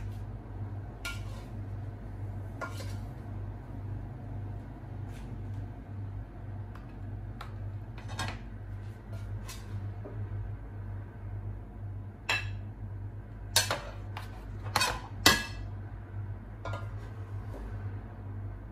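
A spoon clinking and scraping against a pot as cooked rice is served from it onto a plate: scattered light clicks, then a run of sharper knocks in the second half. A steady low hum runs underneath.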